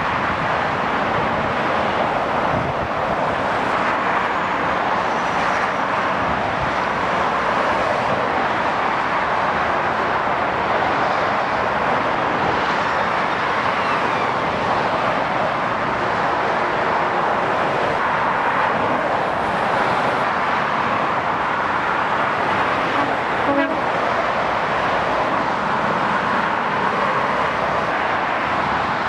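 Steady motorway traffic: lorries and cars passing at speed in a continuous rush of road noise, with a brief short toot about two-thirds of the way through.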